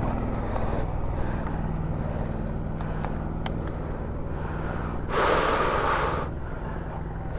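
KTM 390 Adventure's single-cylinder engine idling steadily, with a few light clicks and a short burst of hiss about five seconds in.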